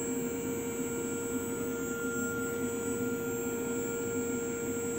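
Steady machine hum from the powered-up Tormach 770 CNC mill, holding a few constant tones with no change in pitch or level.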